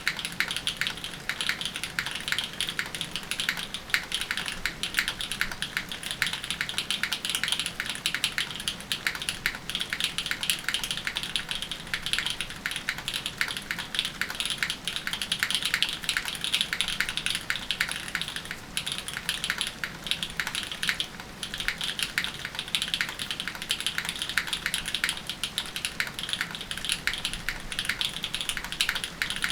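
Fast continuous typing on a mechanical keyboard with an aluminium plate and linear Cherry MX Black switches fitted with Kailh stems: a dense, even stream of key clicks and bottom-outs, with a couple of brief pauses about two-thirds of the way through.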